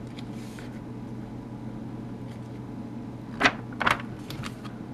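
A glossy magazine page being turned and pressed flat by hand: soft paper rustling, then two short crisp rustles about half a second apart near the end, over a steady low hum.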